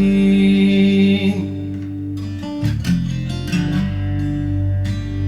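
A song with acoustic guitar playing through Wharfedale Diamond 9.1 bookshelf speakers: a held sung note on "pain" ends about a second and a half in, then the guitar carries on alone.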